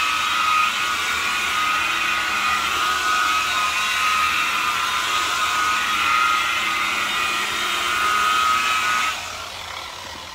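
DeWalt variable-speed rotary buffer running steadily with a white foam pad, polishing rubbing compound on a freshly painted motorcycle fuel tank. It is switched off about nine seconds in and its whine fades as the pad spins down.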